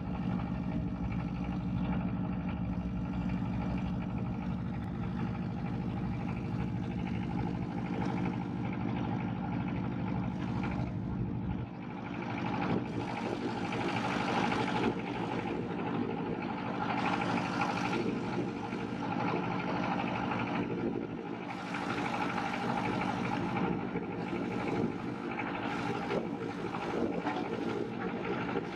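Engine of a wooden river motorboat running steadily at cruising speed. About twelve seconds in the sound shifts abruptly to less low rumble and more hiss.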